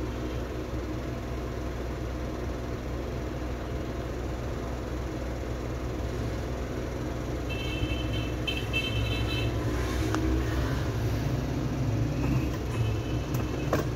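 Hot-air rework gun blowing steadily, a continuous fan hum and rush of air as it heats the phone board to solder the new charging jack. Short, high repeated beeps sound about 8 seconds in and again near the end.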